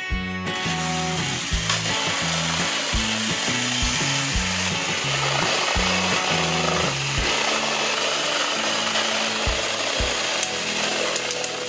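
Two battery-powered Plarail toy engines, Rusty and Thomas, pushing against each other nose to nose: their small electric motors and plastic gears run with a steady grinding whir that starts about half a second in. Background music with a steady beat plays under it.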